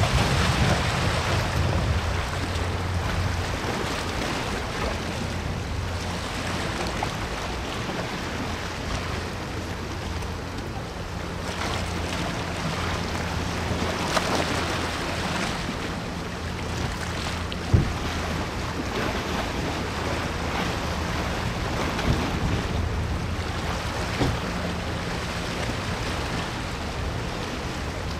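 Wind rumbling on the microphone over a washing water sound and a steady low drone from the passing cruise ship Asuka II. The wind is strongest at the start, and there is a single short click near the middle.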